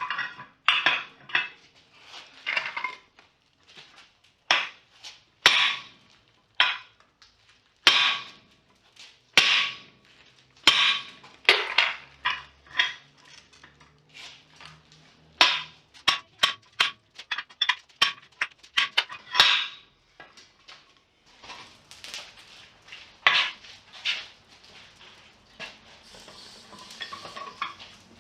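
Blacksmith's steel tools and anvil clanking: irregular metal-on-metal strikes, some ringing briefly, with a quick run of blows in the middle.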